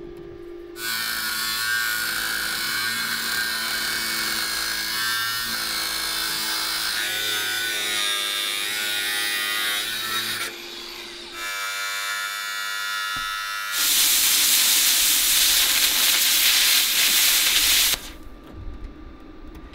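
Plasma cutter cutting through a van's steel side panel: a loud, steady hiss of the arc and air jet in several stretches, with steady hum tones underneath. It starts about a second in, changes character partway through, is loudest and harshest for a few seconds about three-quarters through, then drops to a quieter hum.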